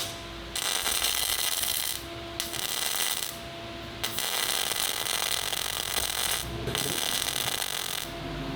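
Power grinder working the steel of a KV-1S tank turret's vision slit in four passes of about one to two and a half seconds. Between passes the tool spins free with a steady hum.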